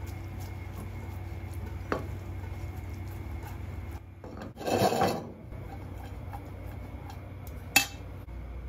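Aluminium frying pan of spaghetti being shaken and tossed on a gas stove's cast-iron grate, with a rasping scrape of the pan sliding on the grate around the middle and a sharp metal knock near the end as it comes off the burner. A steady hum runs underneath.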